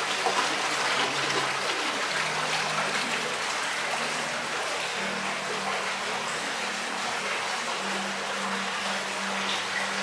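Heavy tropical rain pouring down, a steady dense hiss, with low held tones underneath that change pitch every few seconds.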